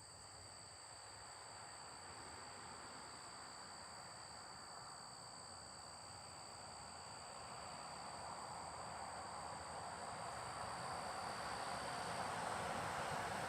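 Faint, steady high-pitched chirring of crickets, two thin continuous tones. A broad rushing noise slowly grows louder through the second half, and the lower of the insect tones drops out near the end.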